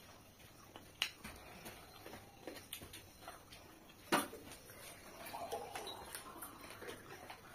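Close-miked eating sounds from hand-eating rice and curry: chewing, mouth and finger clicks, with a sharp click about a second in and a louder one about four seconds in.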